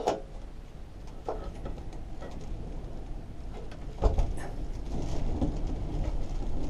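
Faint clicks and light taps of a carburetor and its thin metal linkage wire being handled and fitted against a Tecumseh mower engine. From about four seconds in, a low wind rumble on the microphone.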